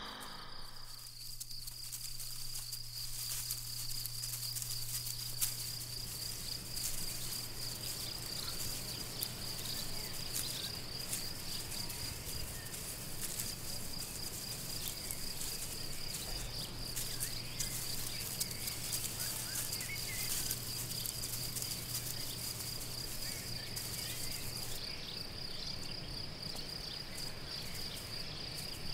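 An insect singing a continuous high-pitched trill that pulses finely and steadily, over faint outdoor background noise with a low hum that stops near the end.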